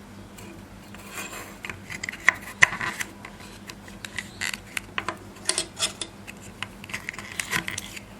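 Irregular clicks, taps and short scrapes of small plastic and metal parts being handled and worked by hand, starting about a second in.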